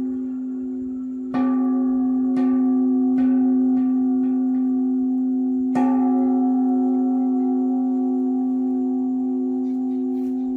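Metal bell struck several times in quick succession during the first six seconds, the last strike hardest, each one renewing a single deep ringing tone that then hangs on and slowly fades.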